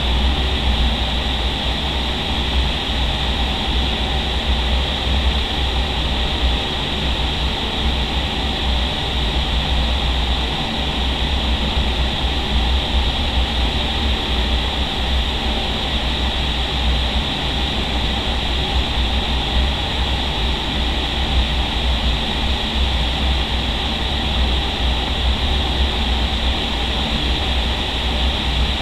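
Indoor vertical wind tunnel in operation: a loud, steady rush of air through the flight chamber with a heavy low rumble underneath, unchanging throughout.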